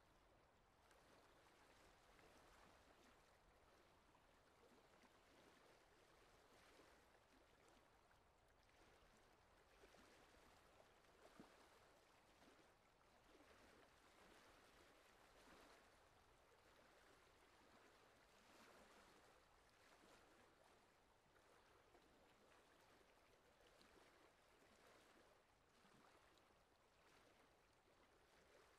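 Faint, steady rush of whitewater river rapids pouring over rocks, swelling and easing a little, with one brief tick about eleven seconds in.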